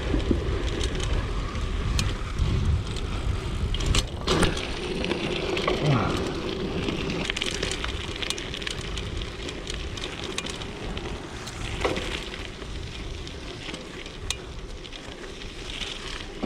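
Mountain bike ridden over a rough trail: a steady rumble of tyres and wind, with sharp knocks and rattles from the bike over bumps, the loudest a pair about four seconds in.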